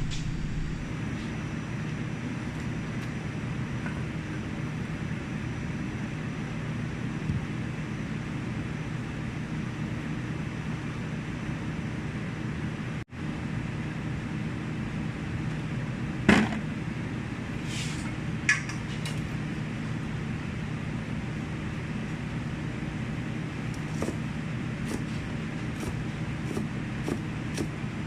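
Steady low mechanical hum, like a fan or motor, with a few sharp clicks and knocks about halfway through and light ticks near the end.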